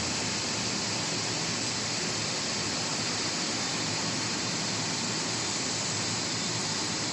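Steady, even rushing noise with no tones in it, strongest in the high hiss range, holding one level throughout.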